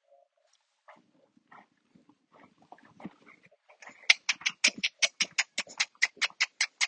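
A dog panting rapidly and evenly, about five to six breaths a second, starting about four seconds in after a few faint, scattered sounds.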